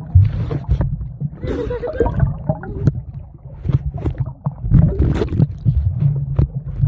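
Muffled sound of water moving around a submerged camera microphone: a constant low rumble, with bubbling and many sharp clicks and knocks.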